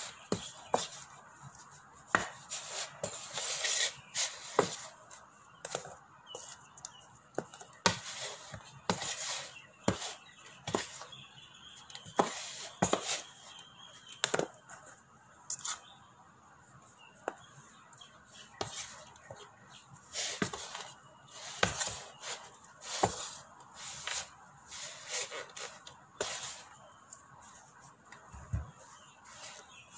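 A metal spoon clinking and scraping against a bowl in irregular taps, often several a second, as raw beef chunks are stirred in seasoned flour.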